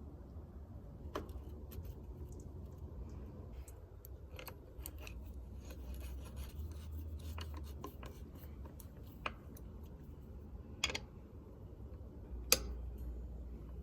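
Scattered small clicks and taps with rubbing and scraping: hand tools and bicycle parts being handled. A few sharper clicks stand out near the end, over a low steady hum.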